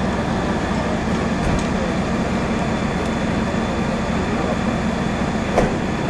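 Steady drone of a fire engine running hard to drive its pump, which feeds the aerial platform's water jet, with a thin high whine over it. A single knock sounds about five and a half seconds in.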